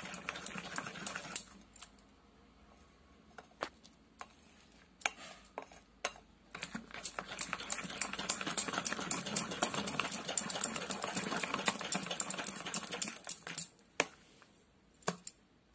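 A spoon beating thick urad dal batter in a bowl, scraping through the batter and clicking against the bowl's sides. The beating is sparse from about two to five seconds in, then runs fast and steady until a last click near the end. It is the continuous beating that makes the batter light and fluffy.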